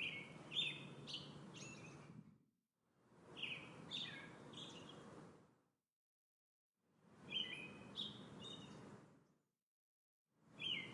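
Songbird chirps, three or four short high calls at a time, over a low outdoor rumble. They come in three stretches of about two and a half seconds, each cut off by dead silence, and a fourth stretch begins near the end.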